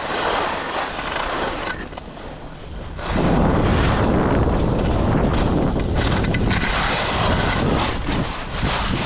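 Skis side-slipping down a hard, prepared race course, the edges scraping across the snow, with wind buffeting the microphone. It grows louder and heavier about three seconds in.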